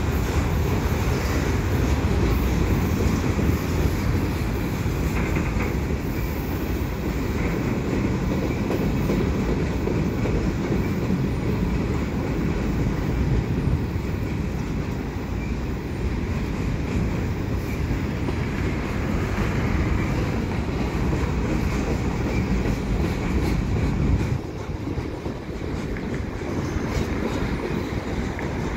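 A slow-moving freight train of gondola cars rolling past on the rails: a steady low rumble of wheels on track, which eases a little about 24 seconds in.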